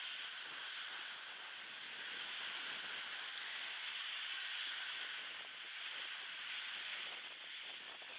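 Small waves washing over a shell-and-pebble shore, mixed with wind buffeting the microphone, as a steady hiss with gentle swells. The sound is thinned by noise reduction and a high-pass filter.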